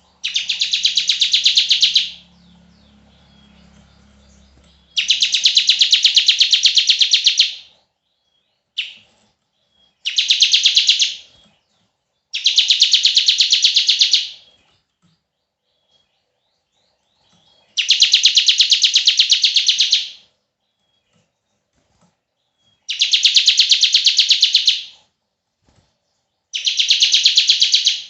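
Ciblek (bar-winged prinia) giving its long 'bren' trill: a very fast run of repeated rattling notes. The trill comes seven times, each lasting two to three seconds, with short pauses between them and a single brief note in one of the gaps.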